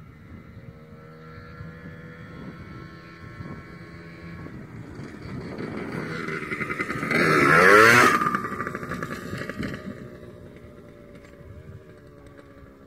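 1989 Yamaha YZ100 two-stroke dirt bike engine running as it rides up, growing louder to a close pass about seven to eight seconds in, with the pitch bending there, then fading as it rides away.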